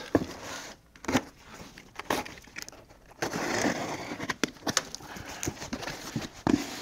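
Box cutter slicing the packing tape on a cardboard shipping box. A couple of sharp clicks in the first second or so, then from about three seconds in a dense scraping rasp of the blade and cardboard.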